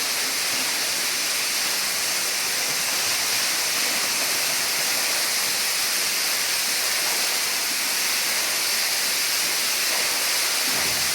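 A 93-foot underground waterfall pouring down a cave dome, a steady, even rush of falling water.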